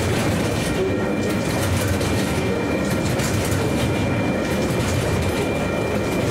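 Container wagons of a freight train rolling past at speed: a steady, dense rumble of steel wheels on rail, with a faint thin high-pitched tone running through it.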